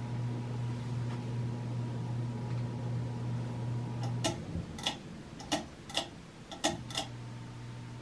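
Casablanca Delta II ceiling fan motor buzzing steadily on a solid-state speed control turned down with the pull chain on medium, a setting at which the control makes the fan buzz more. About four seconds in, the fan's pull-chain switch clicks about six times over some three seconds, and the hum then carries on quieter.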